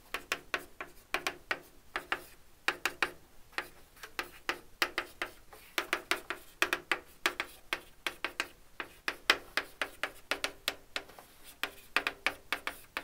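Chalk on a blackboard while writing: quick, irregular taps and short scrapes, several a second, in clusters with brief pauses between them.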